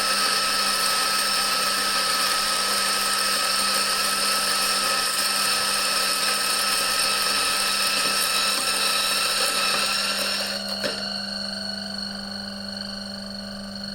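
BG T64 electric coffee grinder running, its titanium-coated flat burrs grinding beans with a loud, steady whirr over a whine. About ten seconds in, the grinding noise drops away, with a click, and the motor keeps spinning with a quieter, steady whine as the burrs run empty.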